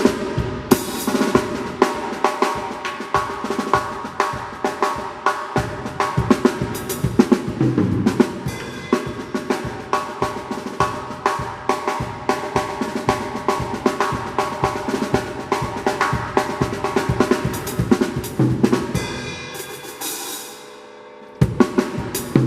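Drum kit playing a fast sebene groove and fill: dense snare and bass drum strokes with cymbals. Near the end a cymbal rings out, there is a short pause, and the playing starts again.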